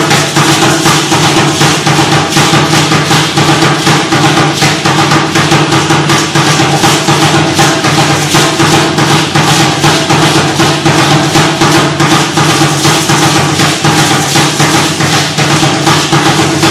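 Upright huehuetl drum beaten by hand in a fast, steady rhythm, with the shaking of the dancers' ankle-rattle seed pods (ayoyotes) over it, accompanying an Aztec dance.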